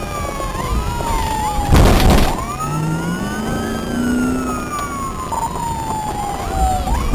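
Police car siren wailing, its pitch sliding slowly down and then climbing again near the end, with a short burst of noise about two seconds in.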